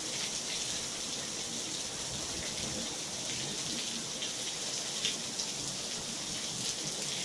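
Heavy rain falling steadily on a tiled patio, lawn and pool: an even hiss with a few sharper drop hits.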